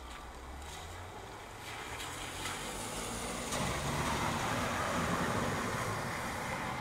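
A car driving past on the wet street, its tyres hissing on the wet road, growing louder and loudest about four to five seconds in, over steady rain.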